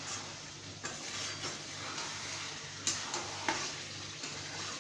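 Chicken sizzling in oil in a metal kadai as a wooden spatula stirs it, with several sharper scrapes and knocks of the spatula against the pan. The meat is at the kosha stage, fried down until the oil has separated.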